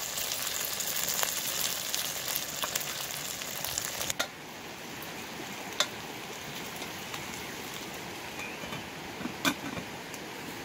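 Chicken feet and cabbage sizzling in a pot over a wood fire, stirred with a wooden spoon. About four seconds in, the crackly sizzle drops to a softer steady hiss, with a single tap and then a few metal clinks near the end as the lid goes onto the pot.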